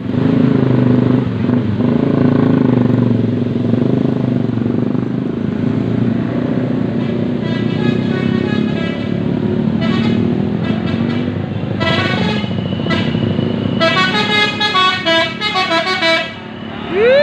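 Bus basuri telolet horn playing a quick melodic tune of stepping notes over a running engine. The horn starts about seven seconds in, after a stretch of engine and road noise, and the notes come fastest near the end.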